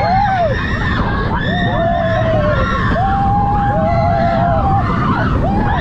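Roller coaster riders screaming, several long held screams overlapping one another, over the steady rush of wind and the low rumble of the moving coaster train.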